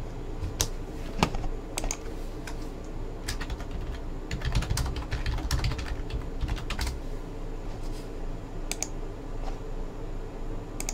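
Typing on a computer keyboard: irregular keystroke clicks, coming thickest in a flurry in the middle.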